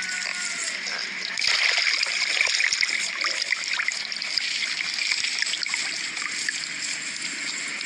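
Water trickling and splashing continuously, a little louder from about a second and a half in.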